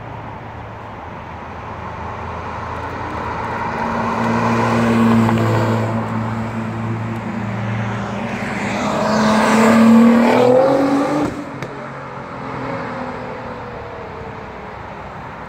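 Sports car engine running as the car comes by, swelling to a first peak about five seconds in and its loudest about ten seconds in, where the pitch rises as it accelerates; the sound drops off suddenly a little after eleven seconds.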